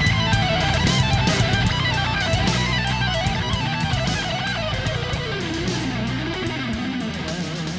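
Background music: a rock track with a wavering electric guitar lead over bass and drums, slowly fading out.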